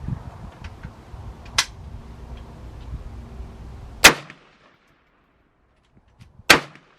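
Two rifle shots from a Palmetto State Armory AK-47, about two and a half seconds apart, the first the louder, fired while zeroing the scope. A fainter sharp crack comes about one and a half seconds in, and a low rumble of wind and handling noise runs under the first half.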